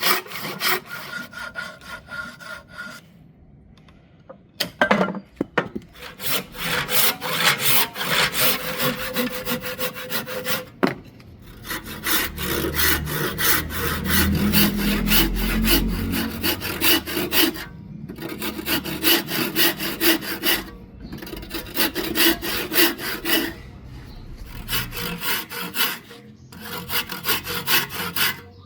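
Hand saw cutting through wood in quick back-and-forth strokes, in several runs broken by short pauses.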